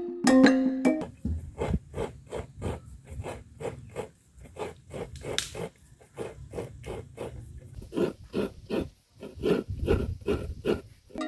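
Fresh coconut being grated by hand on a coconut grater: a steady run of short rasping scrapes, about three a second, briefly quieter in the middle. Percussive background music ends about a second in.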